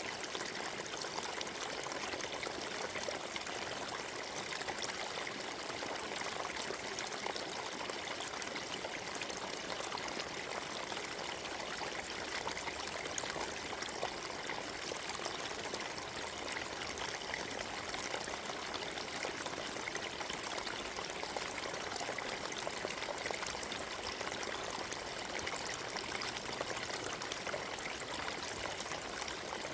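Forest stream flowing and trickling over rocks: a steady, even rush of water.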